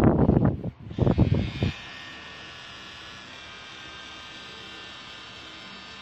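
Loud rustling handling noise for the first second and a half, then an electric tattoo machine running with a steady buzz that starts about a second in, as the needle works ink into the skin.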